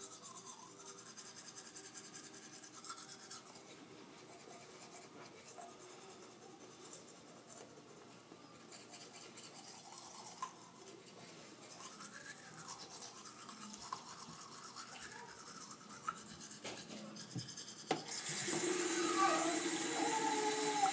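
Manual toothbrush scrubbing teeth, a soft scratchy brushing with non-foaming liquid toothpaste. About three seconds before the end, a louder steady hiss sets in suddenly.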